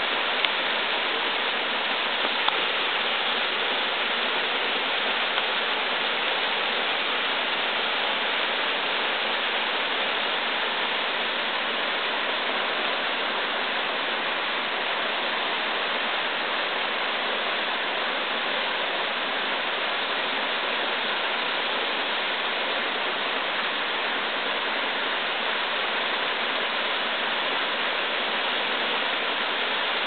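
White Oak Sinks waterfall, a thin stream of water free-falling down a rock face and splashing onto the rocks below, making a steady rushing hiss.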